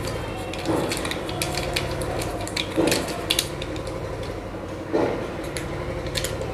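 Small plastic and metal parts of a microphone mount being handled and fitted by hand: scattered light clicks and a few soft knocks, over a faint steady hum.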